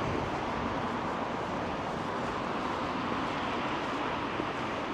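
Steady outdoor ambience: an even rush of noise with no distinct events.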